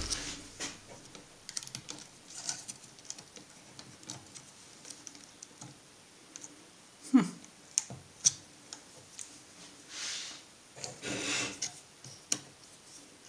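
Irregular small clicks and taps of a slim screwdriver prying at the carbon brush and spring in an angle grinder's brush holder, with one louder click about seven seconds in and a couple of brief scraping rubs near the end.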